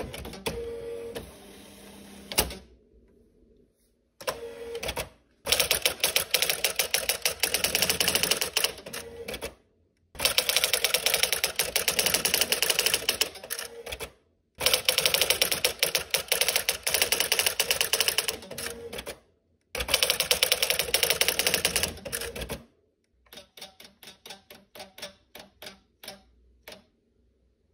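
Brother CE-700 electronic daisy-wheel typewriter printing lines of text, heard as four long runs of rapid-fire strikes a few seconds each with short pauses between lines. It opens with a motor whir and a sharp click, and near the end comes a run of softer, spaced ticks.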